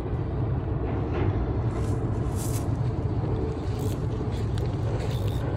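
Steady low rumble of motor traffic, an engine drone with no clear changes.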